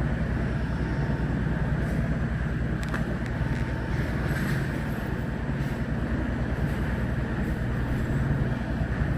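Car ferry's diesel engines running steadily with a fast low throb as the ship comes alongside to berth. A few faint clicks come about two to three seconds in.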